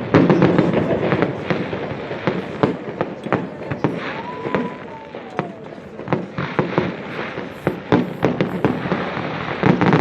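Fireworks display: rapid bangs and crackling bursts going off irregularly, heaviest near the start and end, with a brief whistle that rises then falls about four seconds in.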